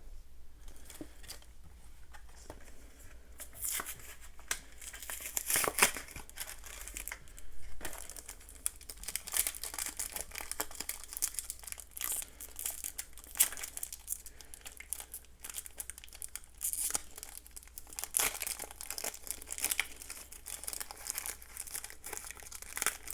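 Foil Yu-Gi-Oh! booster pack wrapper crinkling and being torn open by hand: a dense, irregular crackle that starts a few seconds in.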